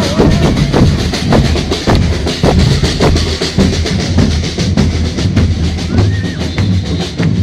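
Murga drum troupe playing: bombos with cymbals mounted on top, beating a steady rhythm of repeated strikes. A voice calls out briefly near the start and again about six seconds in.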